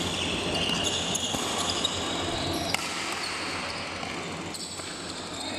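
Badminton rally: sharp racket strikes on the shuttlecock, the clearest about three seconds in, with shoes squeaking on the court floor, over the steady echoing din of a busy sports hall.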